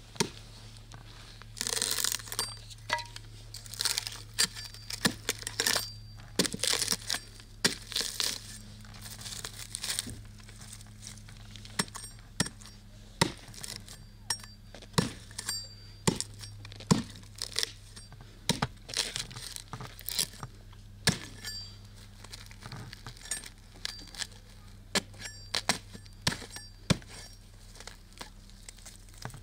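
Irregular clinks, taps and crinkling from kitchen utensils and ingredients being handled during food preparation, over a steady low hum.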